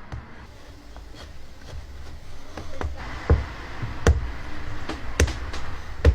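A series of sharp knocks, irregular and roughly a second apart, getting louder, with the four strongest in the second half, over a low rumble.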